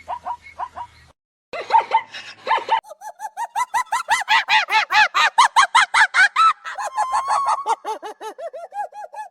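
Bird calling in fast runs of short, repeated pitched calls, about five a second, with a brief pause about a second in; the series is loudest in the middle and trails off near the end.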